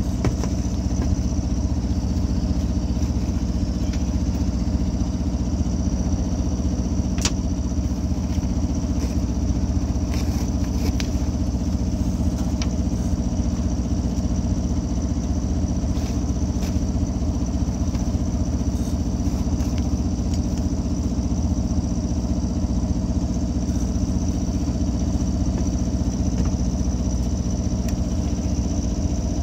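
Boat engine running steadily at low speed, with a few light clicks.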